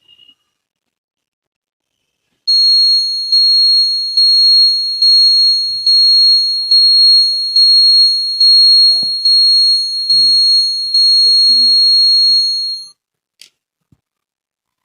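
An electronic alarm buzzer sounds one high-pitched, shrill tone for about ten seconds, pulsing slightly a little more than once a second, then cuts off suddenly. A single click follows.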